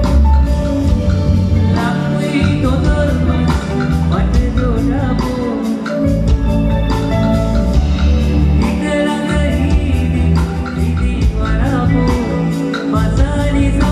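Live band playing a song, amplified through a PA: a male singer over bass guitar, keyboards and drums, with heavy bass and a steady beat.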